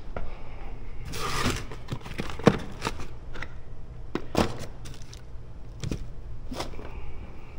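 Cardboard box being handled and rummaged through for parts: a burst of rustling about a second in, then several sharp knocks and scrapes.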